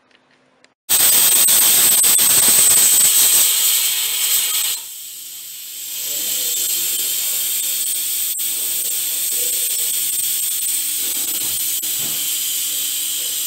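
Steam hissing out of a Pigeon pressure cooker that is spitting water from the top of its lid, a sign of a leak at the lid. A loud hiss starts about a second in, drops back after a few seconds, then settles into a steadier, quieter hiss with a faint low hum.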